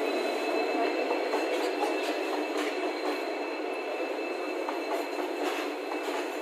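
Rake of BCNA covered freight wagons rolling past slowly, with a steady high-pitched wheel squeal over the rumble and irregular clicks and clacks of wheels crossing rail joints.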